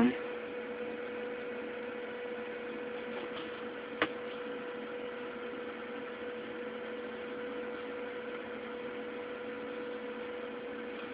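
Steady electrical hum with hiss, unchanging throughout, broken only by one short click about four seconds in.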